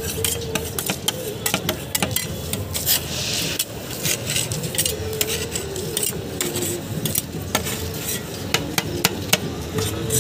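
Two flat metal spatulas chopping and scraping ice cream mix on a steel cold plate: a fast, irregular run of metal clicks and taps, with a longer scrape about three seconds in. This is the stage of rolled-ice-cream making where the toppings are chopped into the freezing cream base.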